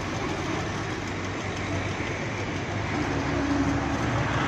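Heavy vehicle engine running steadily under dense road-side noise, with a brief steady hum about three seconds in.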